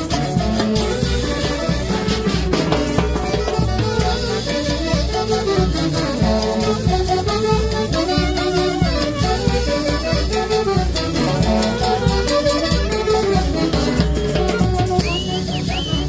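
A live orquesta típica plays a huaylash. Saxophones and a violin carry the melody over a steady beat, and a high, bending line comes in near the end.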